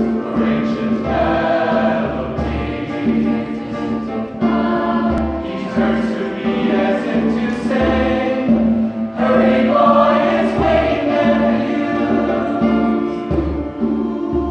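Mixed choir singing in several parts, in phrases that swell and ease every few seconds.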